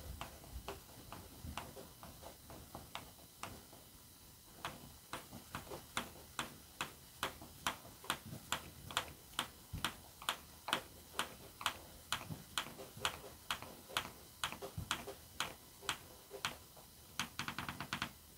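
Ratcheting hand screwdriver clicking as a screw is driven by hand to fasten a rubber non-skid foot into MDF. The clicks are sparse at first, then come steadily at about two to three a second, with a quick run of faster clicks near the end.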